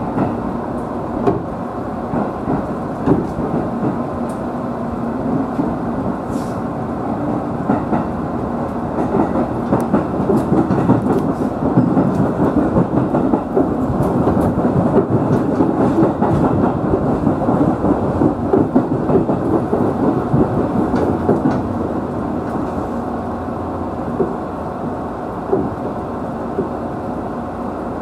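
Seibu 2000 series electric train running, heard from inside the lead car just behind the driver's cab: a steady rumble of wheels on rail with scattered short clicks, louder for several seconds in the middle before easing off.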